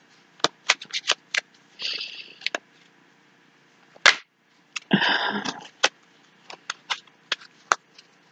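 A deck of oracle cards being shuffled by hand: scattered sharp snaps of the cards, with two brief riffling swishes about two and five seconds in.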